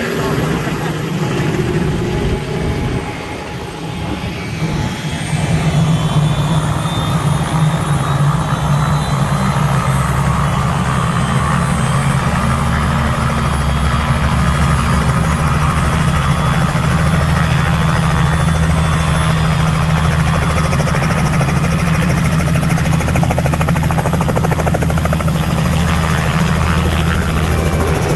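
A small two-blade helicopter with its rotor and engine running steadily, getting louder about five seconds in and holding. It lifts off into a hover before the end.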